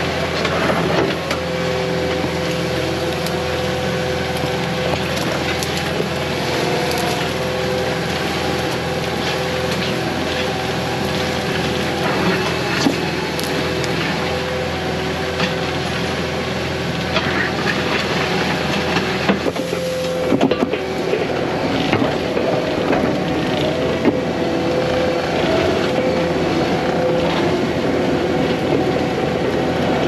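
Tracked skid steer's diesel engine running at a steady speed as it pushes a road-grader attachment, with dirt, rocks and brush scraping and crackling against the blade throughout.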